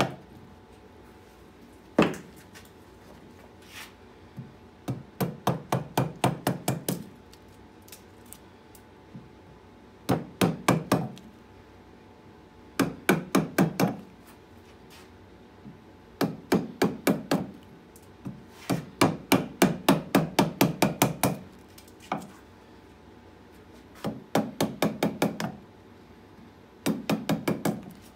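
Carving gouge driven into a birch log with rapid mallet strikes, about five sharp knocks a second in short bursts with pauses between, as chips split away from the hollow.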